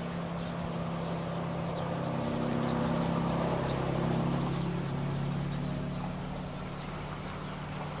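A motor engine passing by, a steady low drone that swells louder around three to four seconds in and then fades again.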